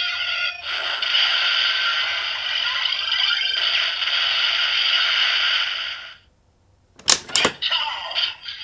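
DX Gamer Driver toy belt playing its Maximum Critical Break finisher effect through its small speaker: a dense electronic finishing-move sound for about six seconds that cuts off suddenly. After a brief silence come two sharp plastic clacks as the driver's lever is worked, and then the toy's electronic sounds start again.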